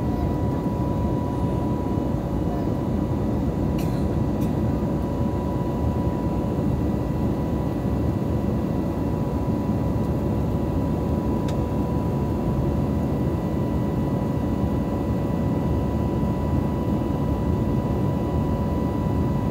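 Steady cabin noise of an Airbus A320neo climbing after takeoff, heard from a window seat: its CFM LEAP-1A engines and the rush of air make a dense low drone, with a thin steady whine above it.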